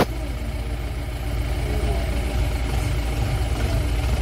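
A vehicle engine idling steadily with a low, even rumble, with a sharp click at the very start.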